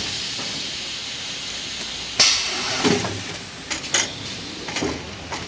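Toilet paper roll packing and sealing machine at work: a steady hiss, then a sharp clack about two seconds in, followed by several lighter knocks.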